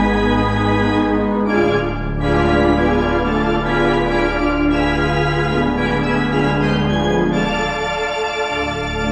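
Four-manual organ playing sustained chords over deep pedal bass notes, the chords changing every second or so.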